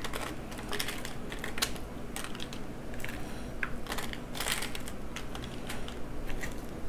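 Scattered light clicks and crackles as chopped red onion is spooned from a bowl and spread by hand over crisp tortilla chips on a pizza pan.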